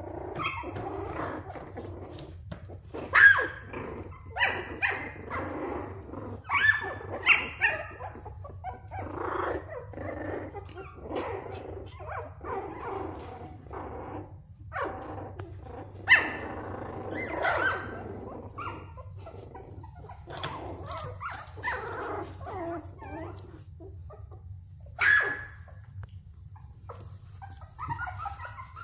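Young puppies play-fighting: a run of small growls with several sharp yips and barks scattered through, and a rising whine at the very end.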